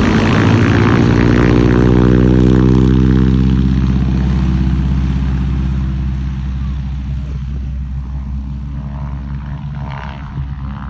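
Propeller-driven warbird's piston engine passing and flying away, its note dropping in pitch over the first few seconds and then fading steadily.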